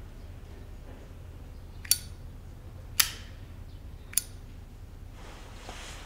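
Three short, sharp clicks about a second apart over a low, steady hum.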